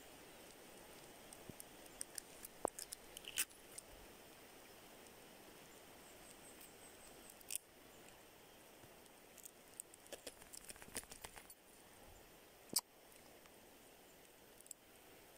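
Small clicks and taps of fingers and fishing line worked against a freshwater snail's shell. They come in a cluster about two seconds in and again around ten to eleven seconds, with a single sharper click near the end, over a faint steady hiss.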